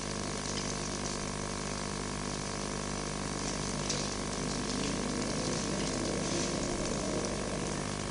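A grill running under milkfish in a wire basket: a steady rushing hiss with a constant hum, with a few faint crackles of the fish cooking over it.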